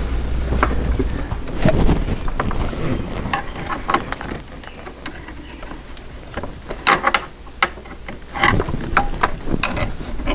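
Irregular small clicks and knocks as the accelerator rod is worked loose from its linkage under the dash of a 1966 Porsche 912, with denser clusters of clicks in the second half. A low hum at the start fades about two seconds in.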